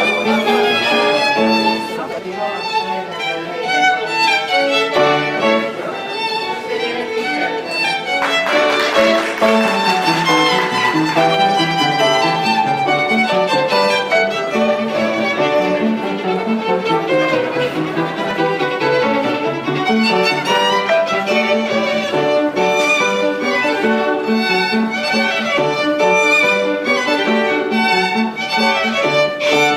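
Instrumental music with a violin playing.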